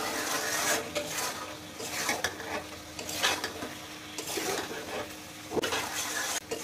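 A spatula stirring and scraping chicken pieces around a kadai in repeated, uneven strokes over a light sizzle of frying oil. This is the final dry-frying stage, with the oil separating from the masala.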